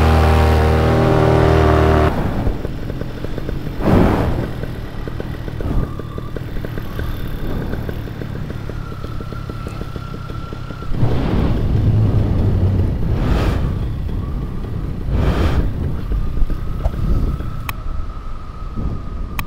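Paramotor engine and propeller running steadily at high power, cutting off suddenly about two seconds in. Then a rush of wind over the microphone, with several gusts, as the paramotor flies low.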